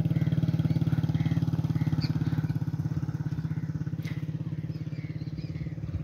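Small engine idling with a fast, even putter, easing off slightly towards the end.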